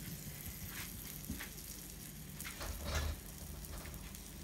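Faint, steady sizzling of besan roti dough on a hot electric griddle plate, with a few soft taps as a hand pats the dough flat.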